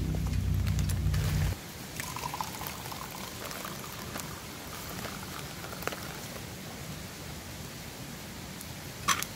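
Liquid being poured, a drink going into a cup, with faint crackling clicks. A low steady hum stops abruptly about a second and a half in, and a sharp click comes near the end.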